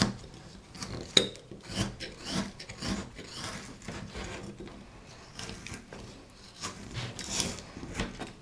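Carving knife cutting chips from a wooden block by hand: a series of short scraping cuts, about one every half second to second.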